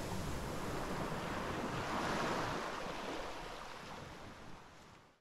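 Small waves washing up on a sandy beach: a steady hiss of surf that swells slightly, then fades out near the end.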